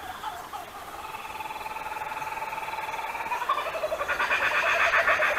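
Laughing kookaburras calling: a rapid rolling chuckle that builds, then breaks into a loud chorus of several birds laughing together about four seconds in.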